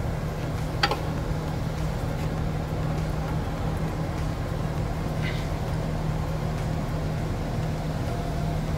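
Steady mechanical hum, with two faint light clicks as a pry bar levers against a Ford Ranger's new front lower ball joint. No knocking comes from the joint: it has no play.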